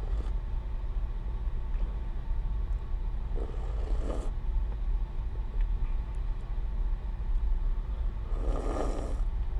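Two short slurps of a melted Frosty sucked from a paper cup, about three and a half seconds in and again near the end, over a steady low rumble of a car.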